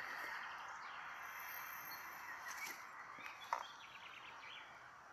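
Faint outdoor ambience with a few short, distant bird chirps and one brief click about three and a half seconds in.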